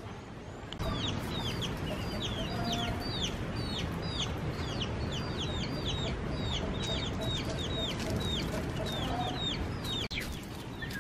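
Domestic chicks peeping: a steady stream of short, high, falling notes, several a second, starting about a second in. Partway through, a hen clucks softly underneath in a quick, low, even series.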